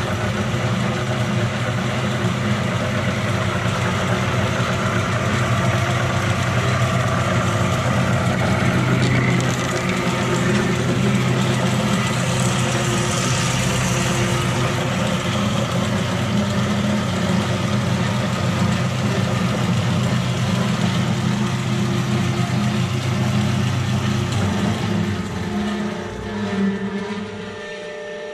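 Wells F-16-1 hydraulic band saw running, with the steady hum of its blade motor and drive. Near the end the low hum fades out and the sound drops away.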